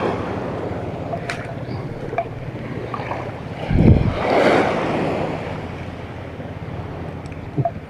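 Sea waves washing onto the shore with wind buffeting the microphone; one wave breaks louder about four seconds in, a low thump followed by a spreading hiss.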